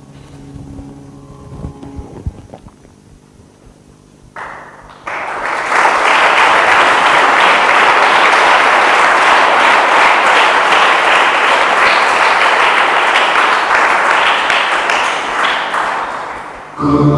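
Audience applause, starting about five seconds in after a quiet stretch with a few faint knocks, running steadily and then fading out near the end.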